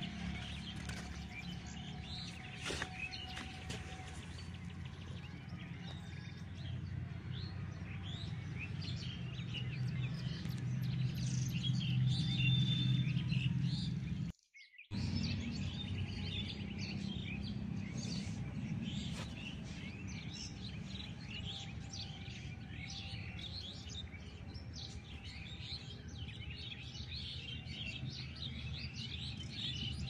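Many small birds chirping in a dense chorus of quick, high, short notes over a steady low hum; the sound cuts out for about half a second midway.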